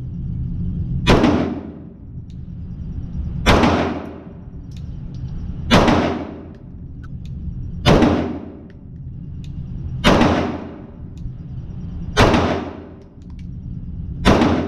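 Handgun shots fired one at a time, seven in all, about two seconds apart, each followed by a ringing echo, over a steady low rumble.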